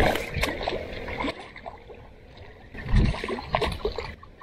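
A hooked barramundi (Asian sea bass) thrashing and splashing at the water's surface as it is reeled in, in two spells: one at the start and another about three seconds in.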